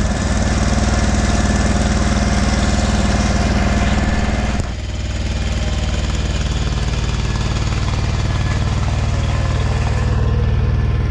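John Deere 317 garden tractor's engine running steadily as the tractor is driven. About four and a half seconds in the sound drops a little and turns duller.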